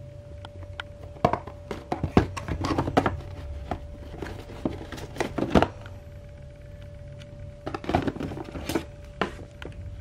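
Cardboard boxes handled and shuffled in a wooden drawer: three bouts of knocks, taps and scrapes, with a steady hum underneath.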